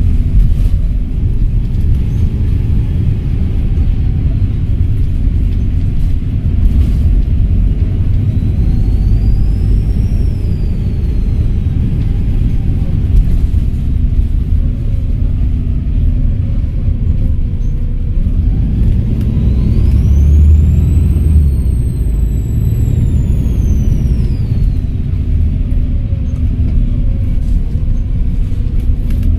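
Volvo B7RLE bus's turbodiesel engine running under way with a steady low rumble, its turbocharger whistling up and back down in pitch twice: briefly early on and longer and louder about two-thirds of the way through as the bus pulls away and eases off.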